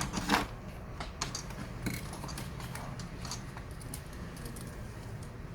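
Scattered small, sharp clicks and taps of hand work on a laptop being taken apart: screws and small parts being picked up and set down, a cluster in the first two seconds and a few more after, over a faint steady low hum.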